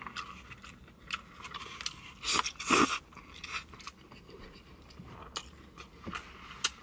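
A mouthful of stir-fried noodles being bitten and chewed close to the microphone: a run of short wet clicks and smacks, with a louder burst about two and a half seconds in.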